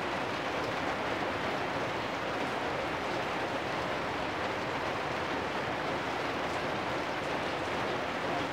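Steady rain falling on corrugated metal roofs, an even hiss with no let-up.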